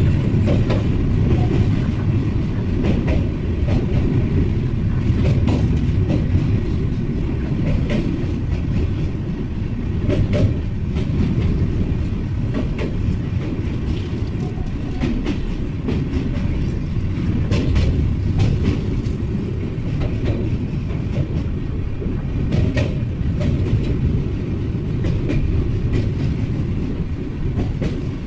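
Passenger train running steadily: a continuous low rumble with frequent irregular clicks of the wheels over the rail joints.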